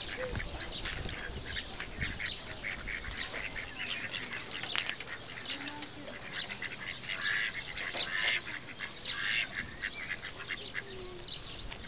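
A flock of mallards calling on the water: many short, overlapping quacks and calls.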